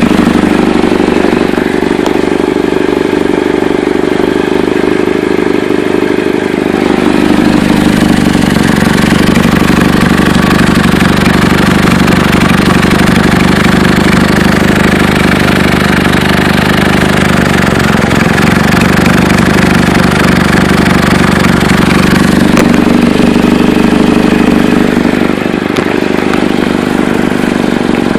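2008 Chevy Cobalt's 2.2-litre four-cylinder engine running steadily with a loud exhaust leak, which the owner suspects is at the flex pipe, the exhaust manifold gasket, or both.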